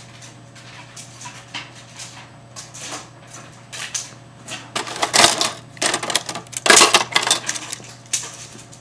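Clatter of small hard objects being handled and set down, a dense run of clicks and knocks that grows louder, with the sharpest knocks about five and seven seconds in.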